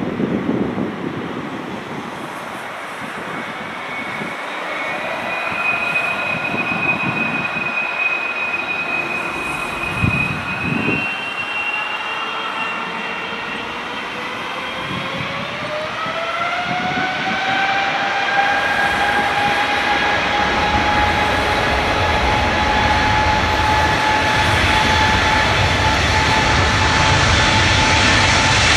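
Boeing 777-300ER's GE90-115B turbofan engines spooling up to takeoff thrust: a whine that climbs in pitch, rising most steeply about halfway through, then holds steady. A deep rumble builds underneath as the jet starts its takeoff roll.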